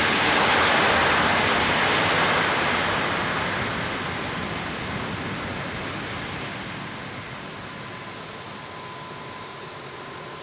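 Landing jet airliner rolling past on the runway: a loud rushing noise, strongest in the first couple of seconds, that fades steadily as the plane moves away.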